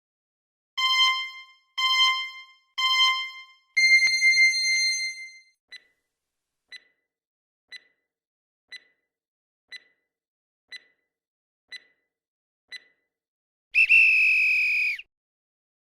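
Quiz countdown timer sound effect: three short electronic beeps a second apart and a longer fourth beep, then eight soft ticks about once a second, ending near the end in a loud electronic alarm tone lasting about a second.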